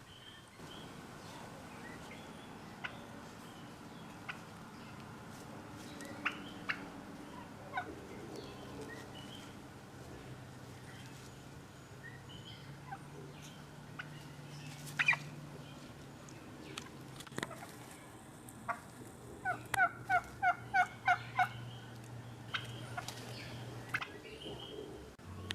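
Domestic turkeys calling: scattered short calls and clicks, then, about three-quarters of the way through, a tom gobbles in a quick rattling run of about seven notes. A faint low hum runs underneath through the second half.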